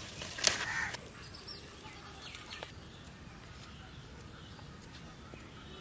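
Leaves being picked by hand from a plant, with one sharp snap about half a second in. Faint bird calls and a steady high whine carry on behind it from about a second in.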